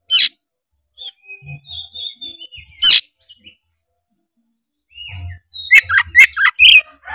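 Oriental magpie-robin singing in short bursts: whistled notes and sharp sweeping calls, with a quick run of about six loud, sharp notes near the end.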